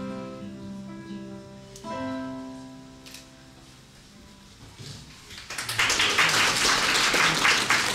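Closing notes of a carol's instrumental accompaniment, with a last chord about two seconds in that rings out and fades. Applause then starts about five and a half seconds in and is the loudest sound.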